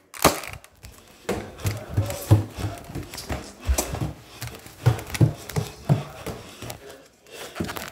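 Handling noise from a phone camera held against clothing: fabric rubbing over the microphone with irregular bumps and knocks.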